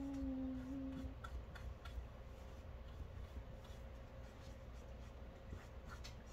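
A person's drawn-out, steady 'hmmm' for about a second while thinking of an answer, then a quiet room with a few faint ticks and taps of paintbrushes working on canvas.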